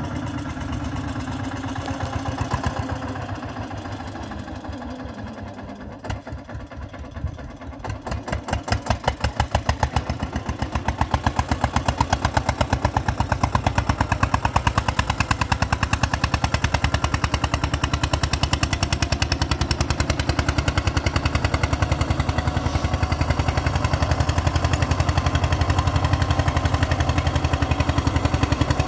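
Tractor diesel engine working under load, a rapid even chugging that grows clearly louder about eight seconds in and then holds steady.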